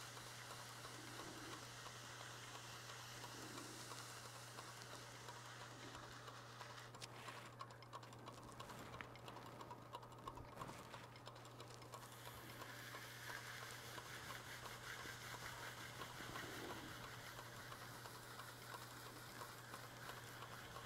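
Faint wet-sanding: a micro-mesh pad rubbing on the spinning CA-finished surface of a wooden platter on a lathe, a light scratchy rustle over a steady low hum. The rubbing drops away for a few seconds in the middle, then resumes.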